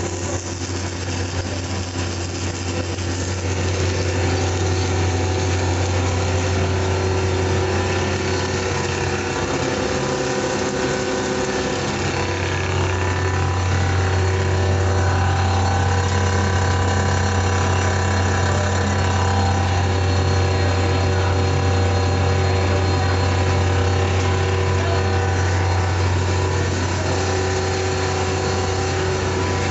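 Machinery of a bread crouton cutting production line running: a steady low motor hum with several steady tones and even mechanical noise over it. The low hum drops away briefly about ten seconds in, then returns.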